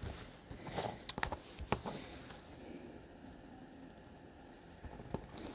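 A few light clicks and rustles from a strip of adhesive tape being pressed onto a paper colour chart to fix a sample of diamond-painting drills, mostly in the first two seconds.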